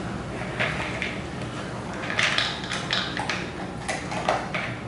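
Dog eating dry kibble from a plastic slow-feeder puzzle toy: irregular clicks, crunches and rattles of food and hard plastic, a handful of sharp ones bunched from about two seconds in.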